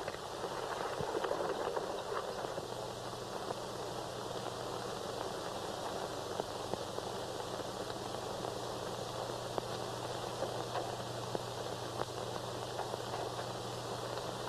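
Steady hiss and crackle of an old film soundtrack, with scattered faint ticks. A low hum comes in about three seconds in.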